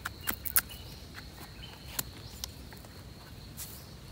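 A steady high-pitched insect trill, with several sharp clicks and snaps: a cluster in the first half second and a few single ones later.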